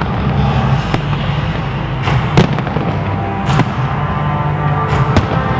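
Aerial firework shells bursting: four sharp bangs, the loudest about halfway through, over steady music from the pyromusical soundtrack.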